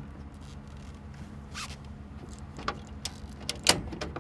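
Excavator air cleaner cover being unlatched and handled: a handful of short scrapes and clicks, the loudest near the end.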